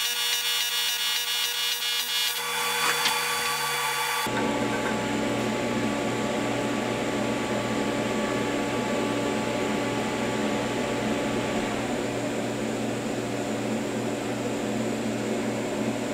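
An AC TIG welding arc buzzing on aluminium as a joint is fused without filler rod. About four seconds in it cuts off abruptly and gives way to a steady whirring hum that lasts the rest of the time.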